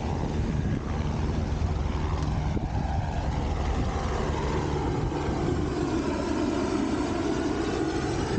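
Helicopter flying past, its rotor and engine making a steady drone over the wash of wind and surf.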